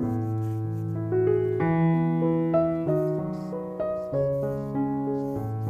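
Background piano music, gentle and slow, with single notes over a held bass line.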